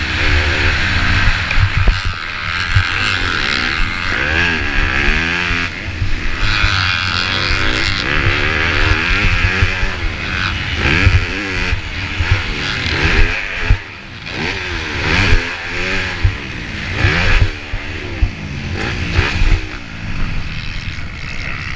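Motocross dirt bike engine heard from a camera mounted on the bike, revving up and falling back again and again as the rider works the throttle and gears around the track. The revs drop sharply about fourteen seconds in, and the engine settles lower near the end as the bike slows.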